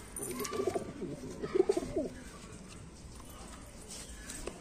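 Domestic pigeons cooing in their loft: two low, wavering coos in the first two seconds, then quieter.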